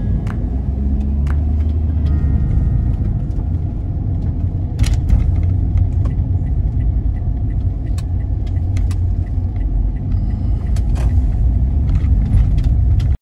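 Steady low rumble with a few light clicks and taps scattered through it.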